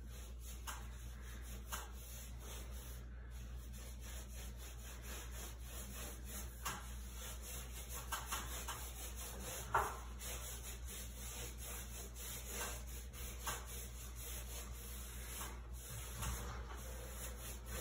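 Faint, irregular rubbing strokes of a small touch-up paintbrush working paint onto the ceiling around a vent cover, feathering the edges, over a steady low hum.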